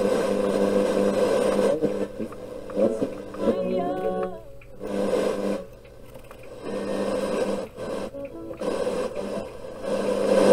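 Panasonic RF-2400 portable radio's speaker as the tuning knob is turned across the band: a pitched buzzing hum that cuts out and comes back several times, with wavering, gliding whistles a few seconds in. No station is being received.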